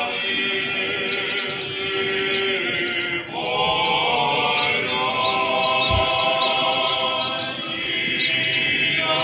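Orthodox liturgical chant sung a cappella by many voices, in slow held notes that move to a new chord about three seconds in.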